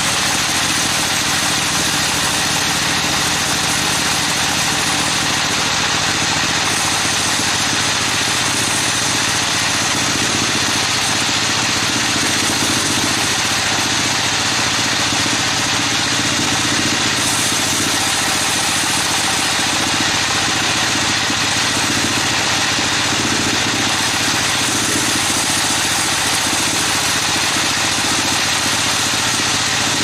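Band sawmill running steadily, its blade sawing through a teak log.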